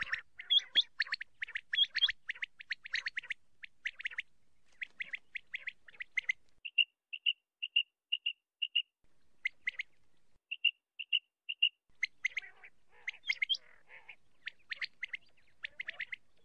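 Female common quail (batair) calling. Rapid clusters of sharp, high notes open the passage and return near the end, with a run of evenly spaced single high pips, about two a second, in between.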